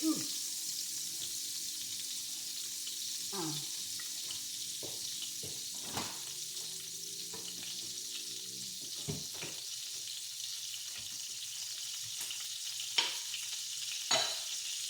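Quesadilla frying in a hot pan: a steady sizzle, with a few short clicks and knocks of a utensil against the pan, the loudest near the end.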